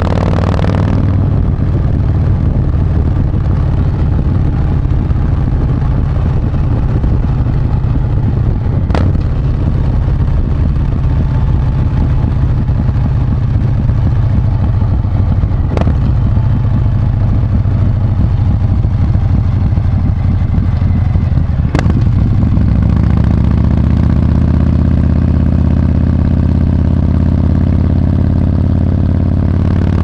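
Harley-Davidson Breakout's V-twin engine running at highway speed, a steady deep drone under rushing air. Three sharp clicks come several seconds apart, and about two-thirds of the way in the engine note changes and starts to rise.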